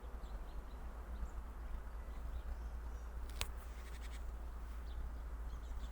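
Outdoor ambience with a steady low rumble, faint rhythmic insect chirping for about half a second past the middle, and a single sharp click about three and a half seconds in.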